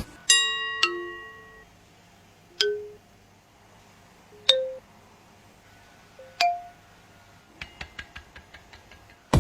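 Kitchenware clinking: several separate ringing strikes, each fading quickly, then a quick run of about ten light taps near the end.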